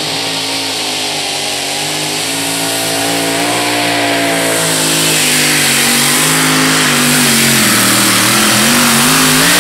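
Two-wheel-drive competition pulling tractor's engine at full throttle, pulling a weight-transfer sled down the track. The loud engine note sags slowly under the load and grows louder, then rises in pitch near the end.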